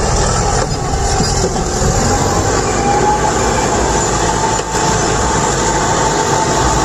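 Steady noise of a heavy vehicle on the move, even in level throughout, with a faint thin tone running through it.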